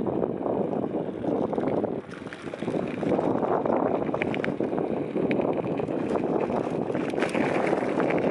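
Wind rushing over the microphone of a moving bike, a rough, uneven rush with a short lull about two seconds in. A few light clicks and rattles come through from the ride.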